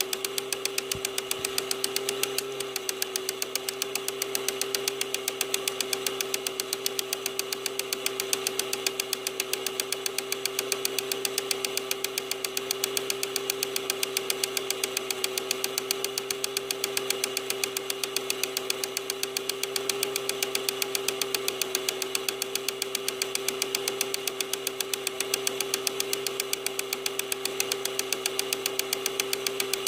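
Dux elkino 900 children's film projector running: a steady motor hum with a fast, even ticking from the film transport.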